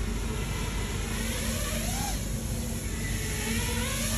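FPV racing quadcopter's motors whining as it flies, the pitch rising and falling with throttle, climbing to a peak about two seconds in and again near the end.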